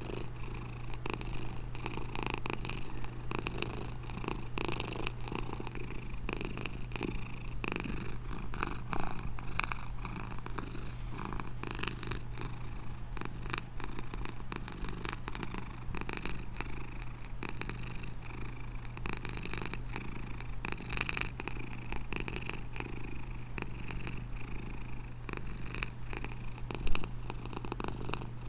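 A domestic cat purring steadily in a continuous rapid rumble, with one brief louder bump near the end.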